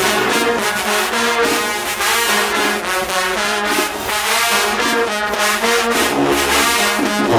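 Marching band brass section playing loud held chords in changing notes, with drum hits underneath.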